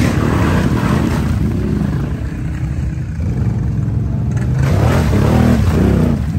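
ATV engines running and revving as the four-wheelers churn through deep mud ruts, the engine pitch rising and falling a few times in the second half.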